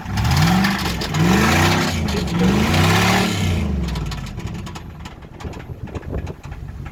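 Car engine with a suspected failed connecting rod, revved in several quick blips that rise and fall, then dropping back to a rough idle with a steady knocking. The knock is taken for a con rod swinging loose, blamed on too many rev-limiter burnouts.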